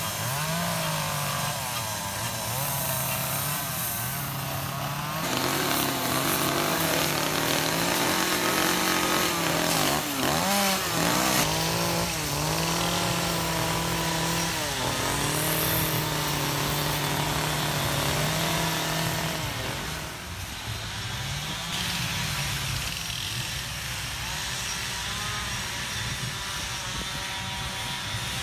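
Chainsaws carving wood, the engines revving up and down between idle and cutting speed, with more than one saw running at once.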